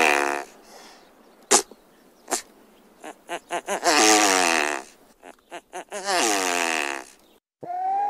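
Great bustard calls: drawn-out calls that fall in pitch, three times, separated by single sharp clicks and runs of quick stuttering pulses. Just before the end, after a brief break, a new call starts and holds a steady pitch.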